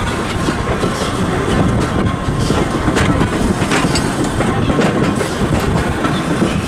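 Steam-hauled heritage train running along the line, heard from an open carriage window: a steady rumble of the coaches' wheels on the rails, with a few sharp clicks over rail joints around the middle.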